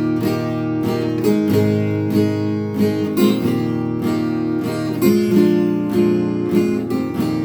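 Acoustic guitar strummed in a steady rhythm, the chords changing every second or two, with no singing over it.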